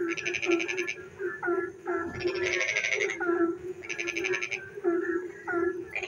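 A chorus of frogs calling at night. A low croak pulses over and over, short falling chirps come in between, and a high, fast rattling trill about a second long starts up three times.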